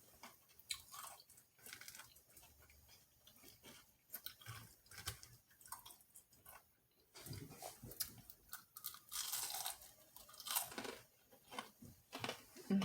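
Close-up chewing and crunching of crispy air-fried chicken dumpling bites, irregular crisp crunches with wet mouth sounds between them, busiest in the second half.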